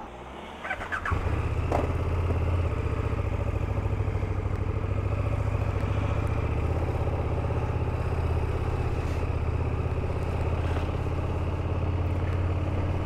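KTM 1290 Super Duke GT's V-twin engine starting about a second in after a few short clicks, then idling steadily.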